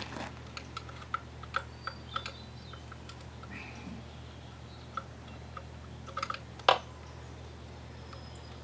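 Scattered light metal clicks and clinks of hand tools working on an old outboard motor's powerhead as it is taken apart, with one sharper clank about two-thirds of the way through, over a steady low hum.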